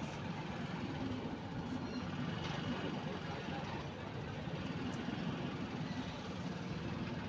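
Express train passenger coaches rolling past close by: a steady noise of steel wheels running on the rails.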